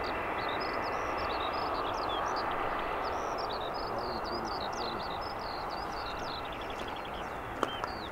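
Steady mechanical rumble of airfield machinery, with small birds chirping and twittering over it throughout. A quick run of ticks comes near the end.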